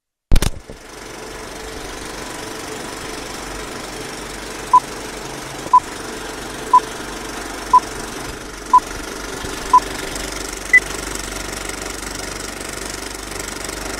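Old film projector rattle running steadily under a countdown leader, with a short beep each second marking the countdown numbers: six beeps at one pitch, then a seventh, higher beep. A sharp click at the very start.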